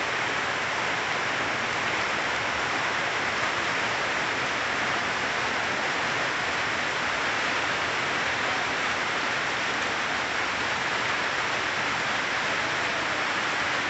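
Rain falling steadily on the leaves of trees, an even, unbroken wash of noise.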